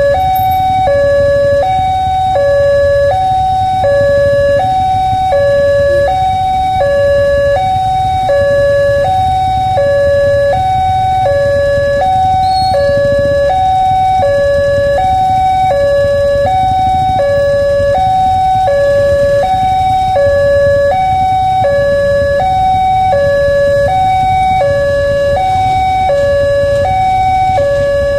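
Railway level-crossing warning siren sounding continuously as a two-tone hi-lo wail. It swaps between a higher and a lower note about every half second, which signals that a train is approaching and the crossing is closed. A steady low rumble runs underneath.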